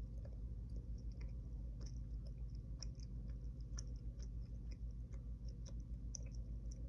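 Chewing a Skittles candy close to the microphone: small irregular mouth clicks over a steady low hum.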